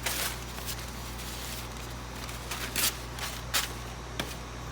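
Scattered short rustles and clicks of hands handling parts while a printer part is swapped for a new one, over a steady low hum.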